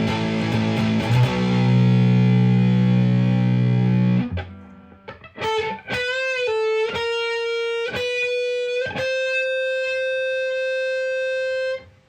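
Humbucker-equipped electric guitar through an overdriven Marshall DSL-1 amp and 2x12 cab. Sustained distorted chords ring for about four seconds; after a short break comes a lead line of single notes with string bends, ending on one long held note.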